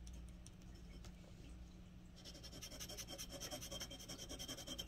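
Glass dip pen nib scratching on card stock: a few light strokes, then about two seconds in, a fast back-and-forth zigzag scribble, a faint, rapid, even scratching.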